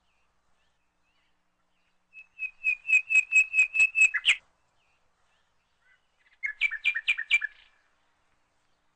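A small bird chirping: a quick run of about ten repeated chirps at roughly five a second, then after a pause a shorter burst of chirps.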